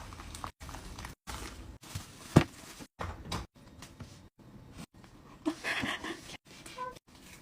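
Close-up handling of K-pop photocards and their plastic packaging: scattered taps, clicks and plastic rustling, broken by short cuts. The loudest is a sharp tap about two and a half seconds in, with a longer rustle near six seconds.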